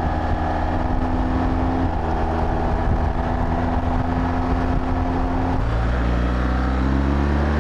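BMW GS boxer-twin motorcycle running at highway speed, engine drone mixed with wind and the loud hum of knobby Michelin Anakee Wild 50/50 tyres on tarmac. About five and a half seconds in, the engine note drops to a lower, steadier pitch, then falls away near the end.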